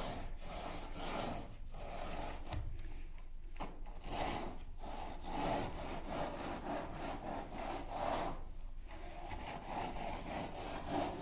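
Repeated scraping strokes of a tool worked back and forth over wet concrete, levelling a freshly poured slab.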